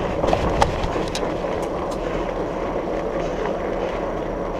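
Steady rolling noise from riding a fat bike with 4.8-inch Surly Knard tyres on pavement at speed. There are a few light clicks in the first second or so.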